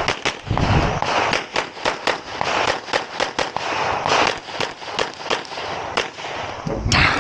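Rapid 9mm pistol shots from a Canik METE SFT Pro competition pistol, fired in quick strings of sharp cracks a fraction of a second apart, as a shooter engages targets during a timed stage.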